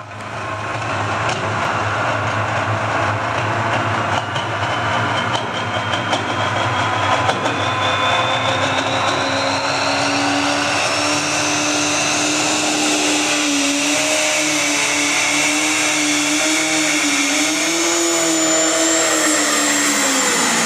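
Light pro stock pulling tractor's turbocharged diesel engine running flat out under load as it drags a weight-transfer sled down the track. A high whine climbs steadily in pitch through the second half of the pull.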